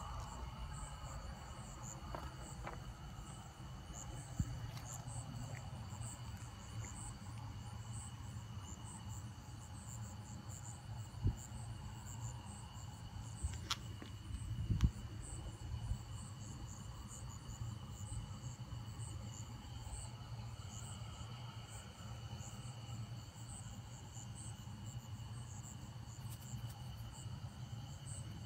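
A chorus of crickets and other night insects trilling steadily at several high pitches, with a rapid pulsed chirping above them, over a low background rumble. A few short clicks and knocks come about halfway through.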